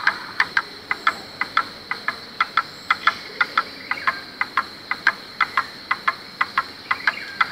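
Cartoon sound effect: a rapid series of short, sharp chirp-like clicks, about four a second and often in quick pairs, over a faint steady high tone.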